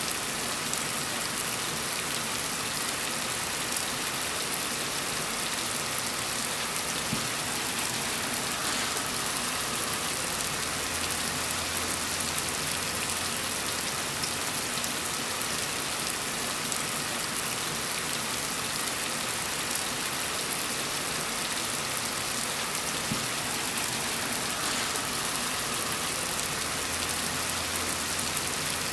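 Heavy rain falling steadily: a dense, even hiss of many drops.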